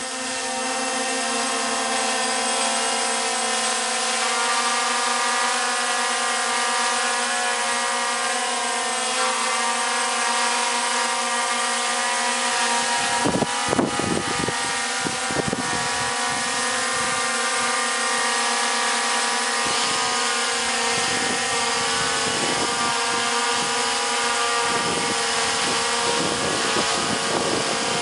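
A DJI Phantom quadcopter fitted with T-Motor MN2214 920KV brushless motors flying overhead: a steady buzzing whine of motors and propellers that holds an even pitch. Short low rumbles come through around the middle and on and off in the second half.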